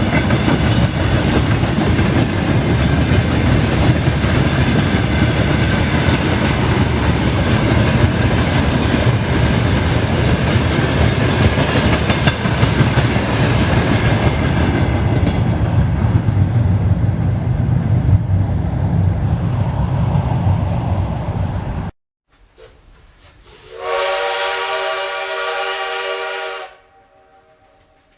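Railway carriage wheels clattering over the rail joints as the train runs steadily, cutting off abruptly about 22 seconds in. Shortly after, a train horn sounds one steady chord for about three seconds.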